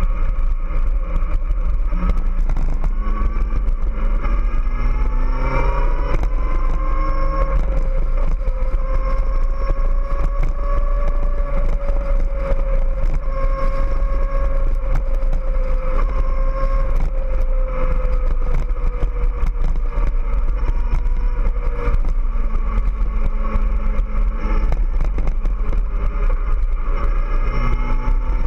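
Kawasaki ZX-14R's 1441 cc inline-four running under way. Its note climbs about four to six seconds in as the bike accelerates, holds steady for about ten seconds, then slowly falls. A constant low rumble sits underneath.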